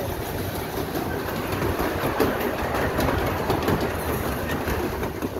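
Open passenger car of a small narrow-gauge park train rolling along the track, its wheels running over the rails in a steady rumble with light clicks.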